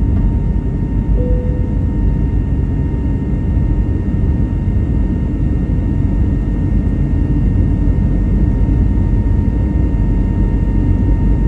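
Airbus A321neo's Pratt & Whitney PW1130G-JM geared turbofan engines at takeoff power: a loud, steady roar with a thin, steady whine held over it.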